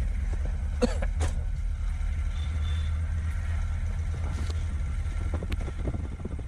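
Motorcycle engine idling with a steady low rumble, with a couple of short clicks about a second in.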